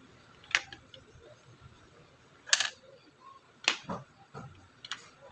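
Sharp clicks and taps of small parts being handled, about six of them, the loudest around the middle. These come from working on a fan-type LED light while testing its LEDs with a 3-volt supply.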